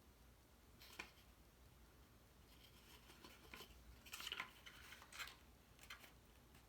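Faint rustling and light taps of cardstock pieces being handled and pressed together, with a sharp click about a second in and a longer rustle around four seconds in.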